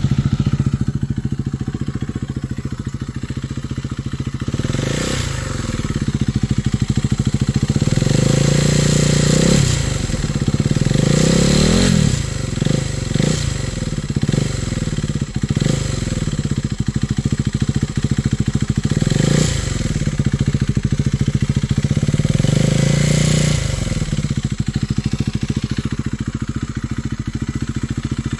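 Husqvarna Svartpilen 401's single-cylinder engine idling through an aftermarket slip-on mid pipe and muffler, with the stock catalytic converter retained. The throttle is blipped several times, with longer revs in the first half, a quick run of short stabs in the middle and two more single blips later, each dropping back to idle.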